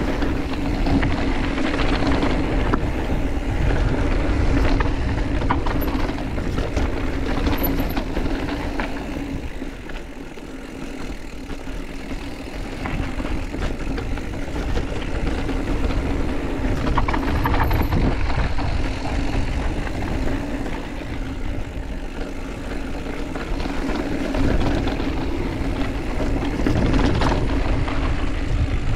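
Mountain bike ridden down a trail: tyres rolling and the bike rattling over the ground, with rumbling wind noise on the microphone and a steady buzz throughout. It eases off briefly about ten seconds in, then picks up again.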